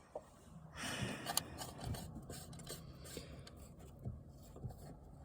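Faint scraping and small clicks of a coax cable connector being pushed and worked onto a CB radio's antenna jack, with a short louder rub about a second in; the connector is not locking in place.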